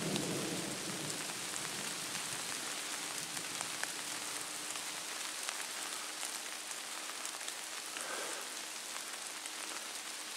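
Steady rain falling on forest foliage, a continuous patter with individual drops ticking through it.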